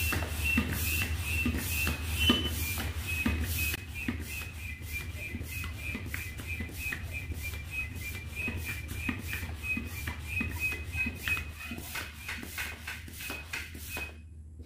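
Hand air pump being worked at about two strokes a second to inflate an inflatable boat, each stroke pushing air through the hose with a whistling hiss. The pumping pauses briefly near the end.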